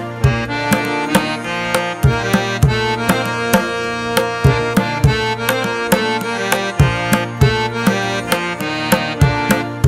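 Background instrumental music: a sustained melodic instrument over a steady hand-drum beat of about two strikes a second, with low drum notes that bend in pitch.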